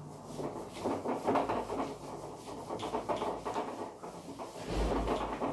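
Whiteboard eraser scrubbing across the board in quick repeated strokes, wiping off marker writing. It makes a steady, scratchy rubbing.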